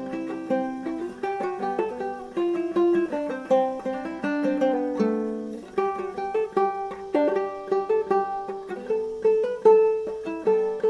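Background music played on a plucked string instrument such as a ukulele or guitar, a quick run of short picked notes.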